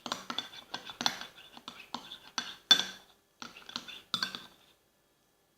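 Metal spoon stirring thick shampoo-and-salt slime in a small cup, clinking irregularly against the sides, with one louder knock near the middle; the stirring stops about three-quarters of the way through.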